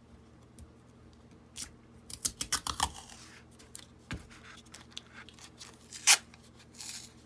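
Masking tape being pulled off the roll and torn: a quick run of sharp ripping strokes about two seconds in, and a single loud sharp snap about six seconds in, with faint handling of the cardboard between.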